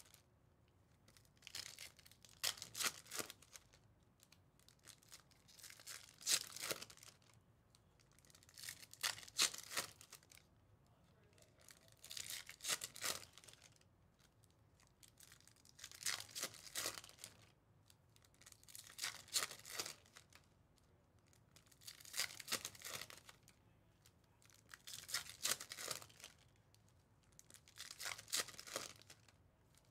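Foil trading-card pack wrappers being torn open one after another, a short crinkling rip about every three seconds.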